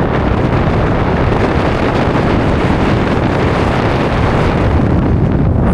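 Strong gusting wind hitting an action camera's built-in microphone: loud, steady wind noise with a heavy low rumble.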